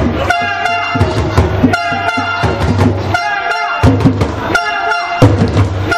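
Loud music with a repeating beat and sustained horn-like chords, the phrase coming round about every second and a half.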